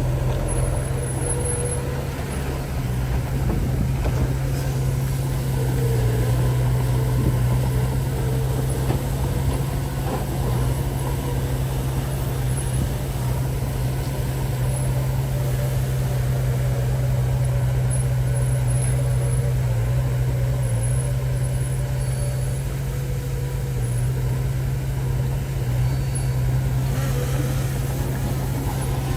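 Heavy diesel engine of earthmoving equipment running steadily at a constant pitch, with no sudden changes.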